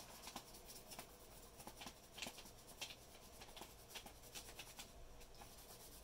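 Faint, irregular scratching of a colored pencil held on its side and rubbed lightly back and forth across paper laid over leaves, raising their texture.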